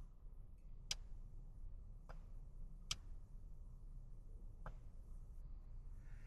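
Four short sharp clicks, irregularly spaced a second or two apart, over a faint low hum.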